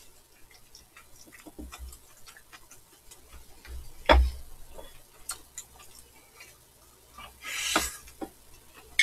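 Eating at a table: chopsticks and spoons clicking and knocking against bowls, with one sharp clack about four seconds in and a short slurp of noodles near the end.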